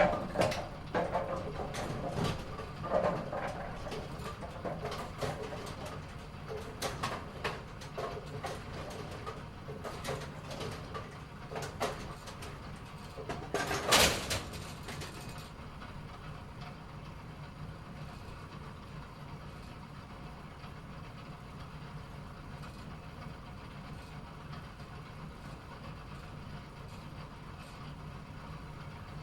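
Bowling-alley pinsetter machinery setting pins: a run of mechanical knocks and pin clatters, loudest about fourteen seconds in, then a steady low machine hum with no more knocks.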